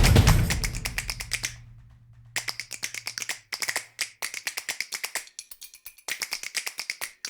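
Music fades out, leaving a low tone. After a short gap come runs of rapid, even clicking, several clicks a second, broken by brief silences.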